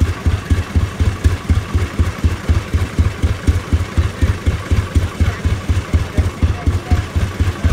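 Rumely OilPull tractor engine running stationary at a slow, steady beat of about five firing pulses a second.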